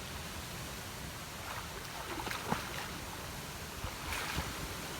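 Steady rush of flowing river water, with a few faint knocks a little over two seconds in and again near four seconds.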